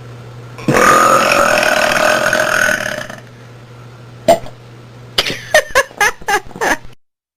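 A woman's long, loud burp, about two and a half seconds of steady pitch, followed by one short voice sound and then a quick string of short voice sounds.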